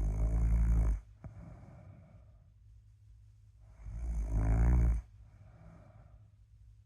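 Snoring during sleep: two loud snores about four seconds apart, each a deep, buzzing breath in followed by a softer breath out. There is a small click just after the first snore.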